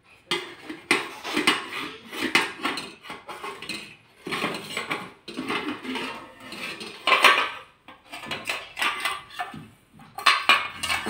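Stainless-steel ladle and slotted skimmer clattering and scraping against steel pots and an idli plate, a rapid, irregular clanking with a couple of brief pauses.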